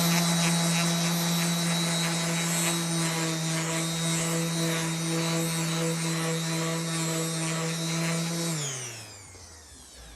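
Electric sander running steadily against a cured epoxy resin surface, then switched off about eight and a half seconds in and winding down with a falling pitch. It is sanding the epoxy coat flat between pours.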